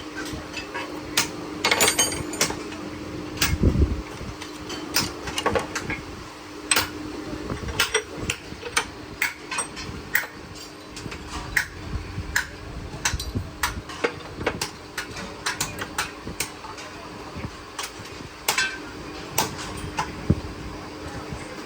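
Metal tools and parts being handled and tapped, irregular sharp clinks and knocks with a heavier thud a few seconds in. A steady machine hum runs under the first third and then stops.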